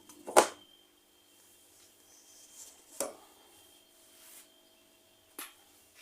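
Handling noises from a flat-screen TV being moved and felt: a loud sharp knock about half a second in, softer knocks at about three seconds and near the end, with faint rubbing between.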